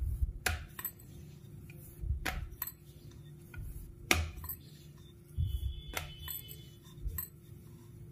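Wooden rolling pin rolling out a thin round of dough on a wooden board: low rumbling thuds from the strokes, with sharp clicks and knocks at irregular moments as the pin and hands bump the board.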